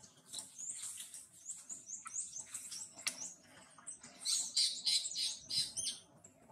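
Birds chirping in a quick run of short, high, falling notes, then a louder stretch of harsher, scratchy sound from about four to six seconds in.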